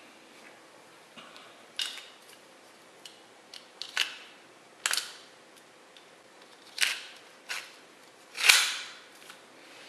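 Plastic Beyblade launcher and toothed ripcord being handled: a handful of sharp plastic clicks and snaps, one of them longer and loudest near the end, as the ripcord is fed into the launcher.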